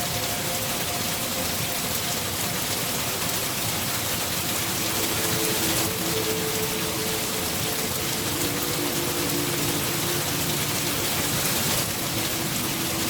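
Steady, heavy rainfall, a dense even hiss of drops. Faint held low tones sit underneath from about five seconds in.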